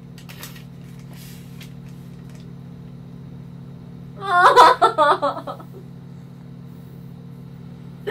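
A woman's voice breaking into a short tearful cry about four seconds in, after faint rustling of a paper card being drawn from an envelope. A steady low hum runs underneath.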